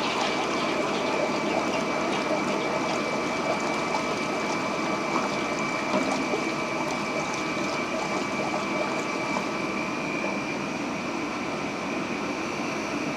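Quench tank's pump-driven water jet rushing steadily over a red-hot steel ball held under it, with a steady high whine running through it. It slowly gets quieter over the last few seconds.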